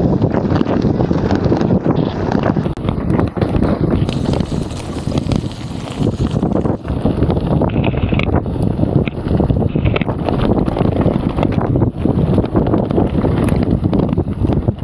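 Mountain bike riding down a forest trail: wind buffeting the camera microphone over steady tyre and trail noise, with many small knocks and rattles from the rough ground.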